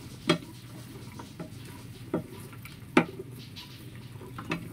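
Spatula stirring chicken pieces through a thick soy glaze in a stainless steel pan, knocking sharply against the pan four times, over a steady low hum.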